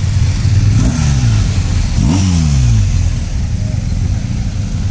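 Engines of vehicles passing by on a road: two go past about a second and two seconds in, each with a falling pitch as it passes, over a steady low engine drone.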